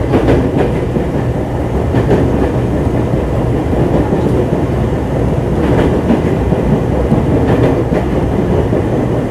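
Onboard running sound of a JR East 205-0 series electric train, heard in motor car MoHa 205-134 with inner-fan traction motors: a steady rumble of motors and wheels on the rails, with a few rail-joint clicks.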